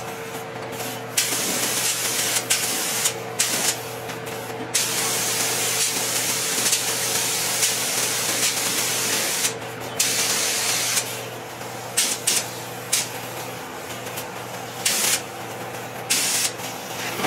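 Compressed-air paint spray gun hissing as it sprays primer, switching on and off in long and short bursts as the trigger is pulled and released. A steady low hum runs underneath.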